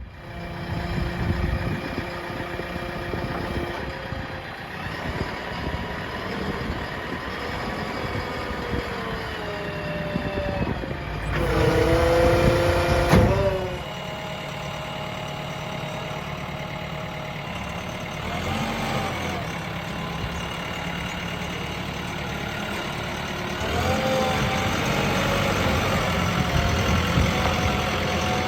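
Diesel engines of a backhoe loader and tractors running at a worksite. One engine revs up loudly for a couple of seconds about halfway through, and the engine note rises again near the end.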